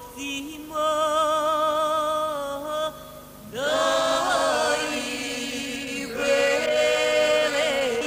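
A man and a woman singing a slow song together in long, held notes with vibrato, with a short break about three seconds in before the voices come in again.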